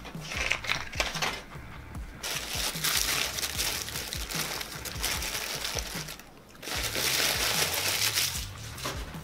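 Paper sandwich wrapper crinkling loudly as a McChicken is unwrapped, in two long stretches with a short pause about six seconds in, over background music with a steady bassline.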